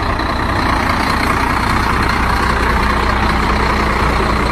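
Heavy truck engine running steadily.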